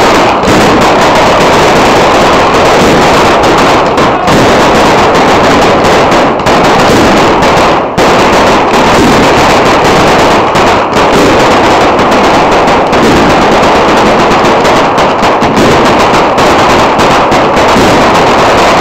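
Dense, unbroken barrage of firecrackers going off at very close range, a rapid machine-gun-like crackle of countless bangs with only a few split-second lulls.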